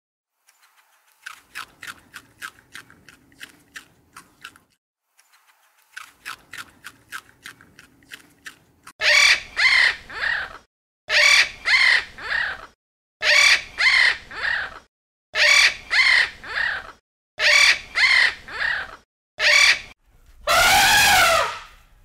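Blue-and-yellow macaw squawking: harsh, loud calls in clusters of two or three, repeating about every two seconds. Before the squawks comes a rapid series of soft raspy ticks. Near the end there is one longer, louder call.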